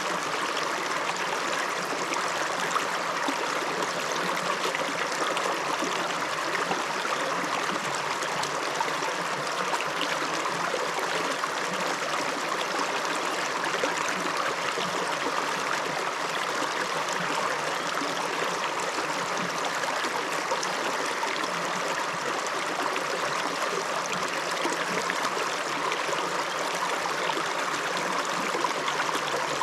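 River water flowing over stones: a steady, unbroken rush of running water.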